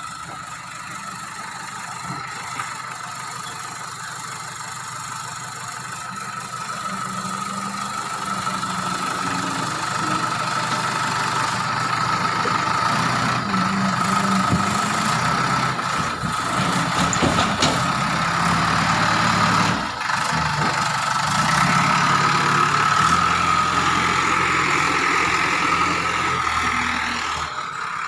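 JCB 3DX backhoe loader's diesel engine running, with a steady high whine over it. It grows louder about a third of the way in, holds there, then drops just before the end.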